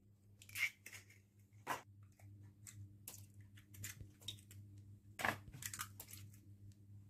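Wire whisk clicking and scraping in a mixing bowl of chopped vegetables as eggs go in. Soft, irregular crunches and clicks, with a few sharper knocks.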